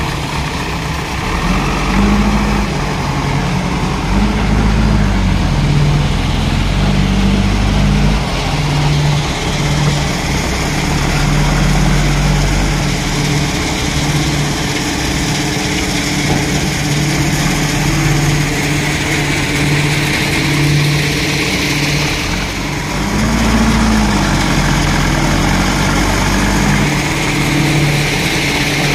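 JCB 3DX backhoe loader's diesel engine running loudly close by, its revs rising and falling several times as the front loader bucket lifts and tips a load of sand into a tipper truck.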